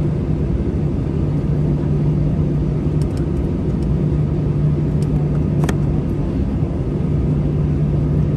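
Cabin noise in an Airbus A321-211 with its CFM56-5B engines idling: a steady low hum. A few faint ticks come about three seconds in, and one sharp click a little past the middle.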